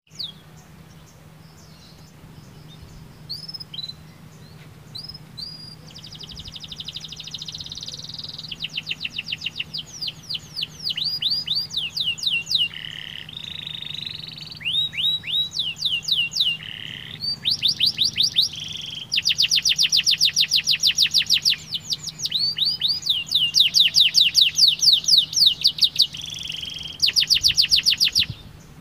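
Domestic canary singing: a few scattered chirps at first, then, from about six seconds in, long rapid trills of quickly repeated falling notes, phrase after phrase with brief breaks, getting louder toward the end.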